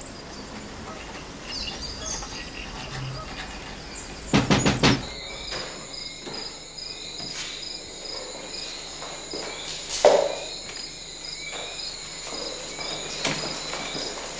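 Crickets chirping steadily, high-pitched and pulsing, with a few quick thuds about four and a half seconds in and a louder knock about ten seconds in.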